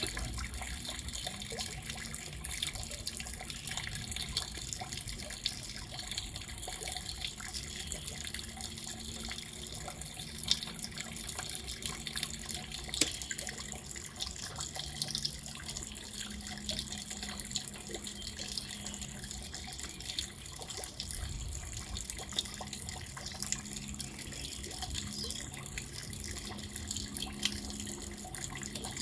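Steady rain falling, with many separate drops and drips ticking close by.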